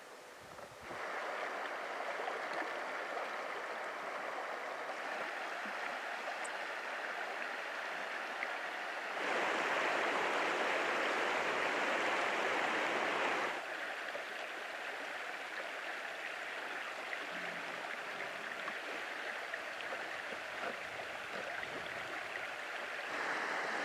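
Mountain creek flowing over a shallow cobble riffle: a steady rush of water. It gets clearly louder for about four seconds in the middle, then settles back.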